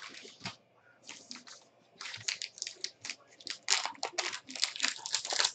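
Foil wrapper of a trading-card pack crinkling and crackling in someone's hands as it is handled and worked open. A few crackles in the first second and a half, then dense, busier crinkling from about two seconds in.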